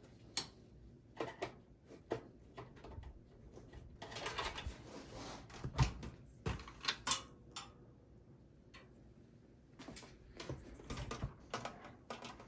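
Scattered clicks, taps and light metallic rattles of a steel desktop PC chassis and a flathead screwdriver being handled during disassembly, with a short scraping stretch about four seconds in.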